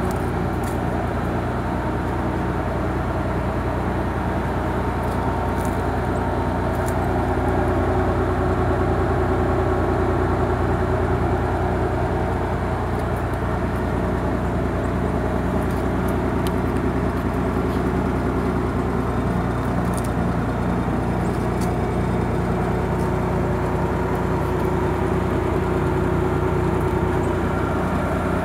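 Nissan 300ZX Twin Turbo's VG30DETT twin-turbo V6 idling steadily.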